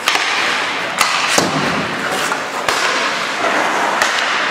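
Ice hockey play: a steady scraping hiss of skates on the ice, broken by about five sharp knocks of sticks and puck, one of them a deeper thud.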